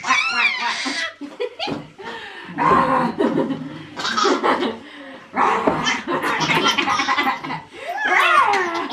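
A baby laughing in repeated bursts of giggles.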